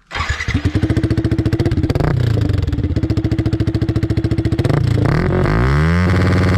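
Yamaha R15 V3's single-cylinder engine through an aftermarket Akrapovič-style slip-on exhaust with its dB killer fitted, coming in suddenly and being revved: held high with a brief dip about two seconds in, then dropping back about five seconds in and rising again near the end.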